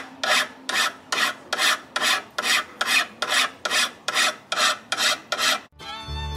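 Hand file drawn across the steel bevel of a forged bowie knife blade, a steady rasping stroke about two and a half times a second. The filing stops near the end and fiddle music starts.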